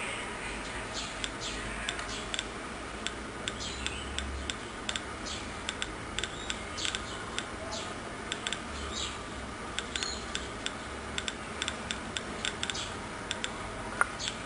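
Home-built Geiger counter clicking at random, uneven intervals, a few clicks a second, each click a detected ionising particle.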